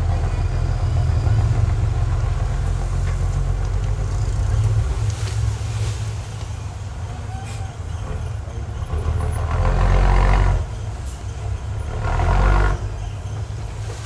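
Heavy diesel earthmoving machinery running with a steady low rumble. Two louder surges of noise come about ten seconds in and again near the end.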